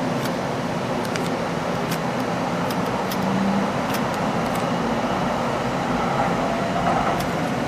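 C-Train light-rail car heard from inside as it rolls out of a station: steady running noise of the car on the track, with a few faint brief tones and scattered light ticks.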